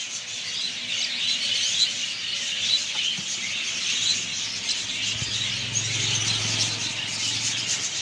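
Many small cage birds chirping and chattering at once, a dense, continuous high twittering. A low hum joins in about five seconds in.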